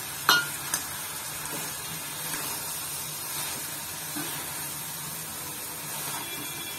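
Pumpkin pieces and grated jaggery sizzling with a steady hiss in a kadai as they are stirred with a metal spatula, which clinks against the pan twice in the first second.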